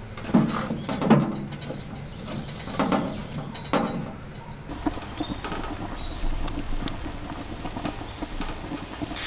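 Split firewood logs knocking as they are handled at a wood-fired smoker's firebox, about four heavy knocks in the first four seconds. A quieter stretch of small clicks and crackles follows.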